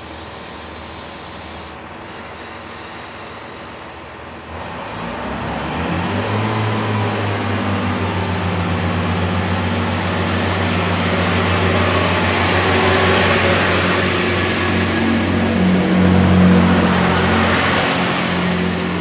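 Class 165 diesel multiple unit pulling away from the platform. Its diesel engines open up about five seconds in and then run under load with a deep, steady note. The sound grows louder as the carriages pass, with more hiss from the wheels and running gear near the end.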